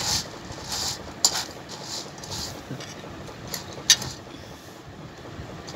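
Steel spoon tossing crisp fried noodles and shredded cabbage in a steel bowl: rustling scrapes about twice a second, fading in the second half, with two sharp clinks of the spoon against the bowl, about a second in and near four seconds.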